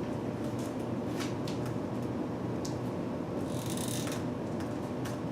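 Quiet classroom with a steady background hum, scattered faint clicks and a brief scratchy rustle a little past halfway, from students writing with pencils on paper.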